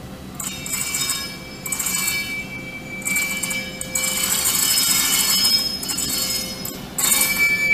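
Steel wheels of slow-moving ÖBB class 1044 electric locomotives squealing against the rails, in several surges of high screeching with steady shrill tones. The squeal comes and goes as the locomotives roll by and is loudest a few seconds in.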